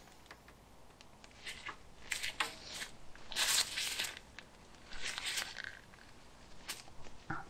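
Scattered short scraping and rustling noises, several of them a second or so apart, from gloved hands and tools working at the bolts of the front suspension's spring plate as they are loosened.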